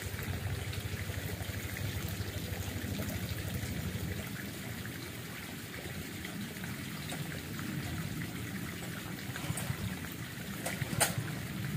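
Water trickling in a small stream, with a low rhythmic rumble in the first few seconds that fades, and a single sharp click about eleven seconds in.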